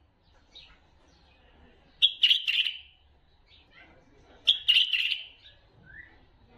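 Wild white-eared bulbul song: two loud bursts of quick, chattering whistled notes, each about a second long and roughly two and a half seconds apart, with fainter short calls between them and a soft rising note near the end.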